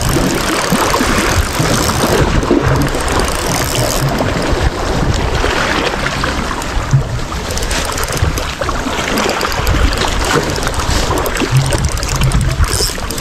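Sea washing against a rocky shore, with wind rumbling on the microphone.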